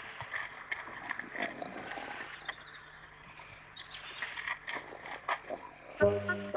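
Outdoor ambience with faint bird chirps and scattered light clicks and knocks. Music comes in near the end.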